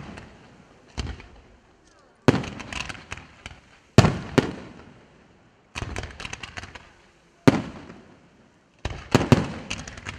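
Fireworks display: aerial shells bursting in clusters of sharp bangs, about six clusters, a new one every one to two seconds, each trailing off in echo.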